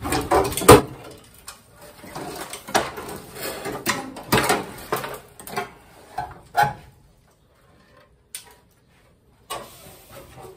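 Rusty sheet-steel floor pan section of a 1968 Pontiac Firebird being wrenched free and lifted out: irregular scraping, crunching and clanking of thin metal, with the loudest bang about a second in. It stops about seven seconds in, then a couple of faint knocks follow near the end.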